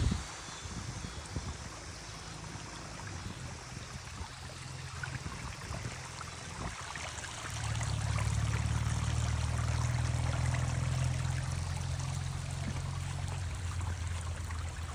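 River water rushing over a small waterfall, a steady rushing and trickling. A low rumble comes in about halfway through and stays the loudest part, with a brief knock at the very start.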